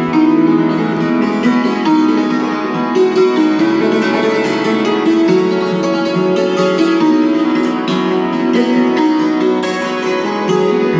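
Hammered dulcimer played with hammers: a fast, steady run of struck notes that ring on and overlap, over sustained lower notes.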